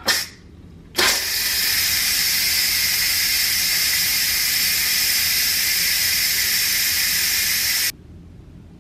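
Instant Pot Lux electric pressure cooker venting steam through its release valve after cooking, a quick release of the built-up pressure. A short hiss comes as the valve is turned, then about a second in a loud, steady hiss of escaping steam that cuts off suddenly near the end.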